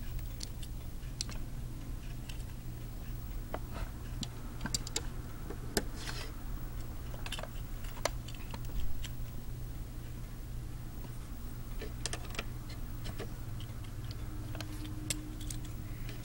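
Irregular small plastic clicks and rattles of Lego bricks being handled and snapped together, over a steady low hum.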